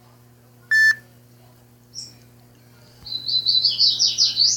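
Songbirds singing back and forth: a short loud whistled note about a second in, a brief high chirp near two seconds, then a fast high warbling phrase from about three seconds on. A steady low hum underneath.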